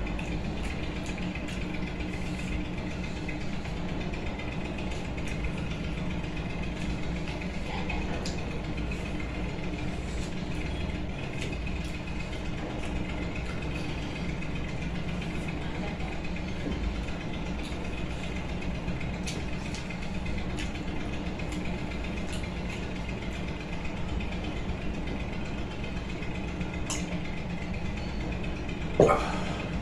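A steady machine hum with a few fixed low tones, from a running motor or appliance, with faint soft clicks and smacks of rice being mixed and eaten by hand. Near the end there is one short, louder noise as he drinks from a cup.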